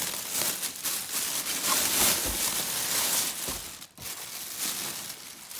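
Clear plastic packaging bag crinkling and rustling as it is handled, with a brief pause about four seconds in.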